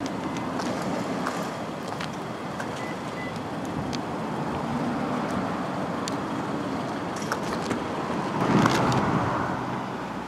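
Street ambience of road traffic: a steady wash of passing cars, swelling louder as a vehicle goes by about eight seconds in.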